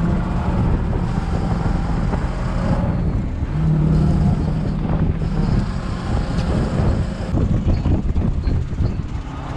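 Fishing boat's engine running steadily during longline hauling, a held hum twice for a couple of seconds, with scattered knocks from the deck.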